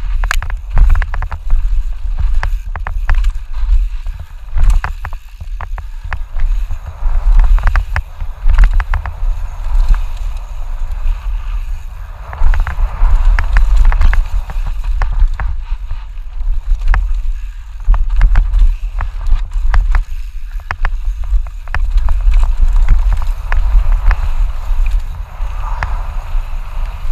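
Mountain bike descending a rough dirt trail, recorded on a GoPro. Wind buffets the microphone with a heavy rumble. Tyres run over dirt and rocks, and the chain and frame clatter in dense, irregular knocks.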